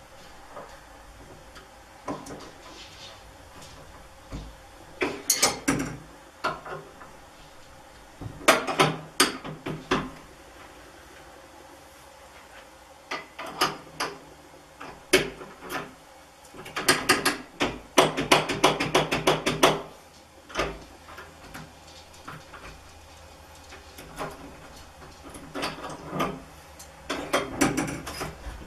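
Irregular metallic clicks and knocks in clusters from a steel handle lock being fitted to a door handle, with a fast run of rapid clicking about two-thirds of the way through.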